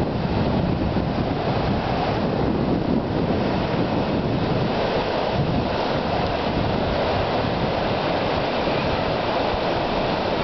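Ocean surf breaking steadily, with wind noise on the microphone.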